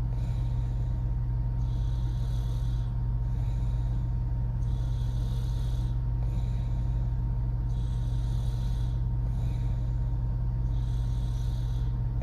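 A woman snoring through an open mouth: airy breaths about every three seconds, four in all. A steady low hum runs underneath and is the loudest thing.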